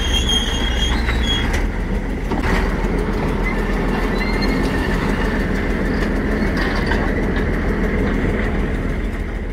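Antique cable-operated dragline working: its diesel engine runs steadily under load as the hoist lifts and swings a full bucket of dirt. Brief high squeals come through, the clearest near the start and about four seconds in.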